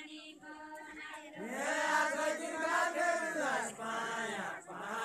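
Men singing a Deuda folk song together in a chanted unison, holding long notes in drawn-out phrases that rise and fall, with a brief pause before a new phrase begins near the end.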